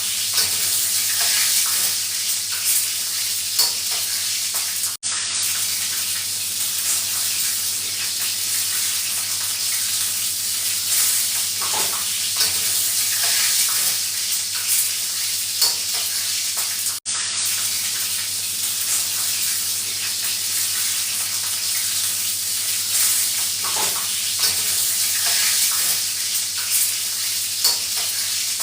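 Food frying in a pan: a steady sizzle with small crackles. It cuts out for an instant twice, about five seconds and about seventeen seconds in.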